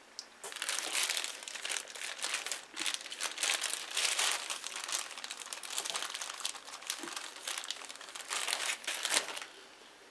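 Clear plastic zip-top bag crinkling as hands work it open and pull out a lump of homemade clay, in a long run of uneven crackles that stops shortly before the end.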